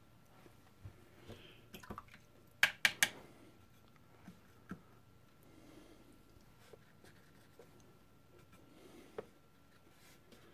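Small handling sounds at a painting table: a quick run of three sharp taps or clicks about three seconds in, and a few faint ticks over quiet room tone.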